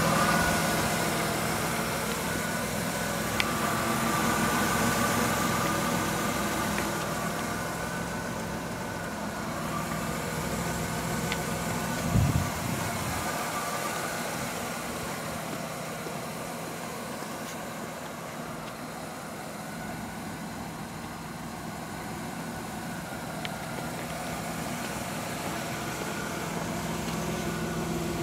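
A 1998 Plymouth Voyager's 3.3-litre V6 idling steadily, heard from outside the van. A brief low thump comes about twelve seconds in.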